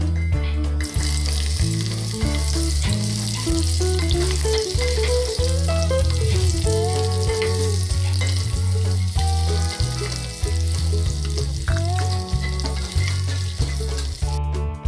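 Raw mango pieces sizzling in hot mustard oil in an aluminium kadai as they are stirred with a wooden spatula. The sizzle starts about a second in and cuts off suddenly near the end, over background music with a steady bass line.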